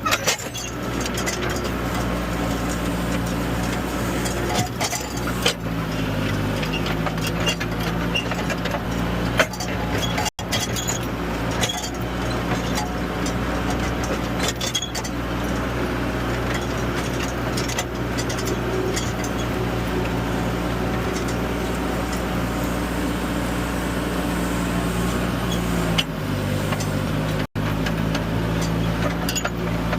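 Bobcat 863G skid-steer loader's diesel engine running steadily, heard from the operator's seat; its pitch shifts a couple of times as the load changes. Scattered knocks and rattles sound over it.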